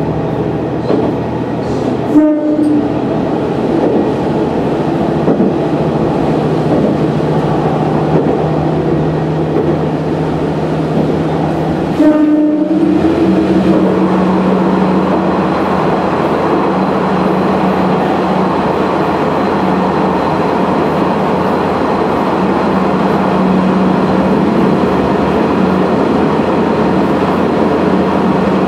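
Sanriku Railway type 36 diesel railcar running with a steady engine drone, and two short horn blasts about 2 seconds and 12 seconds in. After the second blast the running grows louder and the engine note rises a little as the train enters a tunnel.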